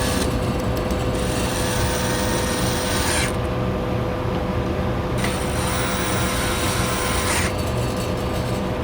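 Power drill run in two bursts of about two seconds each, whining, over a steady mechanical hum, while a vending machine's vend motor is being swapped out.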